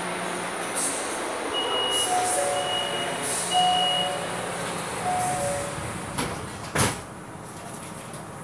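Metro train running through a tunnel, heard from inside at the front window, with a series of short high tones in the middle. A sharp loud clunk comes near the end, after which the running noise drops.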